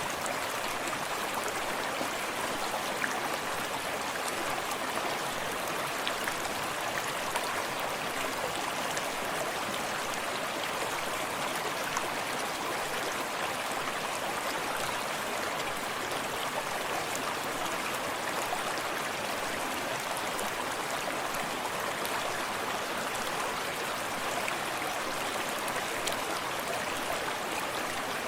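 Forest stream running steadily, water lapping and trickling over stones, with small splashy flickers in the rush.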